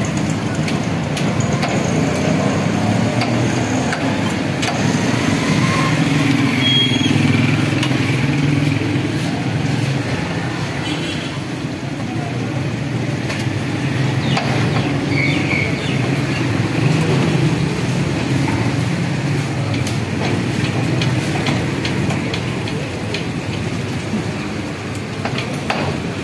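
Busy street ambience: motor traffic, including motorcycle engines, running steadily, with scattered sharp knocks.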